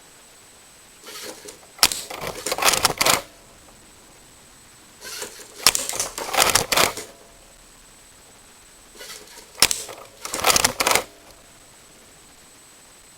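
LEGO pop-up target range working: three bursts of plastic clicking and clattering, about four seconds apart, each set off by a sharp click.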